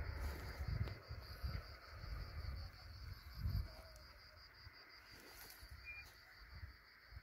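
A cricket chirping steadily in a quick, even pulse, about five chirps a second. Low rumbling bumps on the microphone come and go in the first half.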